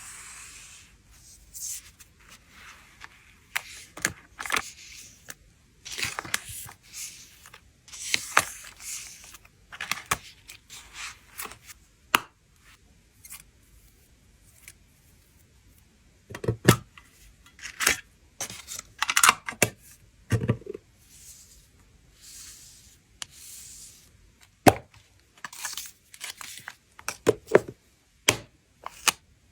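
Photocard packing materials being handled: irregular crinkling and tearing of plastic and paper, with sharp taps and clicks and a couple of duller thumps.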